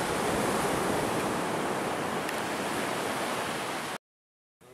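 Steady rushing noise of surf on a sandy beach, which cuts off suddenly about four seconds in.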